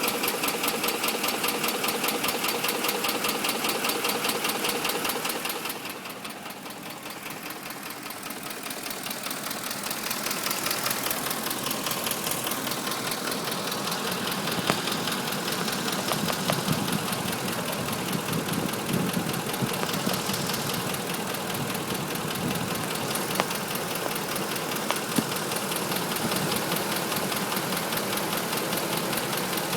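2005 Ford F-150's 5.4-litre V8 engine running with a rapid, steady tapping/knocking. The owner suspects the cam phasers, as two dealers have said; the knock is present at all RPMs. The sound grows fainter for a few seconds about six seconds in, then comes back.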